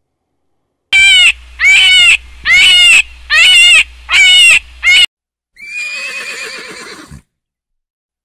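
Six short, high animal calls in quick succession, each rising and falling in pitch, then a horse whinnying with a wavering call for under two seconds.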